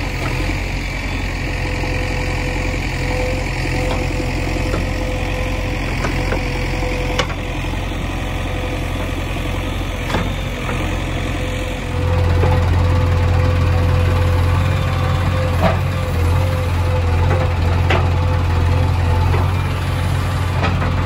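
JCB 3DX backhoe loader's diesel engine running while the backhoe digs and dumps soil, with a steady whine and a few sharp knocks. About twelve seconds in, the engine becomes louder, as heard from inside the cab.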